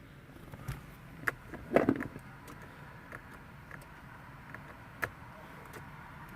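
A few scattered sharp clicks and light knocks over a quiet background, the loudest a short rattling clatter about two seconds in and a single click about five seconds in.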